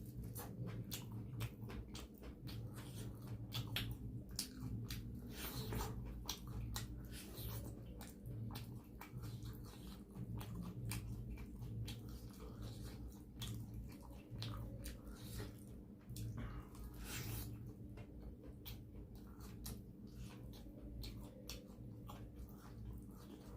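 Close-miked chewing of soft food (curry with flatbread and rice), many small wet mouth clicks and smacks, over a steady low hum.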